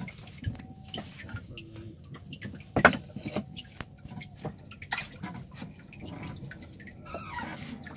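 Water splashing and dripping in the water-filled hold of a wooden boat where live hilsa are kept. There are irregular small splashes and one sharp, louder splash about three seconds in.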